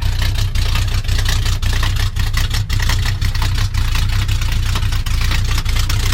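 Chevrolet K10 pickup engine idling through 8-inch glass-pack mufflers on both sides: a steady, low exhaust rumble with an uneven pulse. The engine is still warming up after a cold start.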